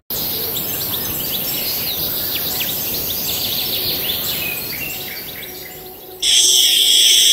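Birds chirping over a steady high hiss, then about six seconds in a loud, steady buzz starts from the large insect held in the cat's mouth.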